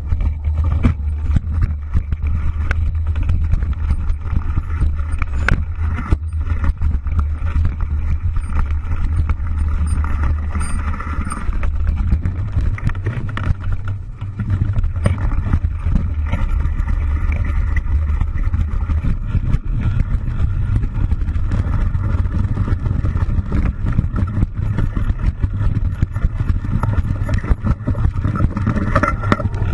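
Mercedes-Benz Viano van driving over a rough, rutted dirt track, heard from inside the cabin: a steady low rumble of engine and running gear, with frequent knocks and rattles as the van jolts over bumps.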